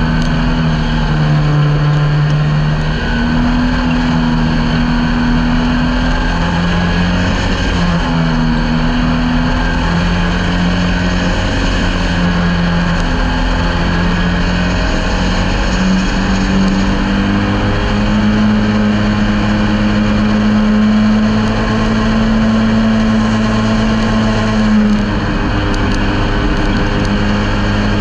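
Ministock speedway car's engine heard from inside the cockpit, its revs rising and falling as it laps a dirt track. It holds steady high revs for several seconds, then eases off briefly near the end.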